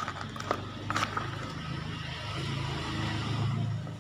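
A low, steady motor rumble, like a vehicle running nearby, growing a little louder in the second half and falling away near the end. A couple of faint clicks in the first second.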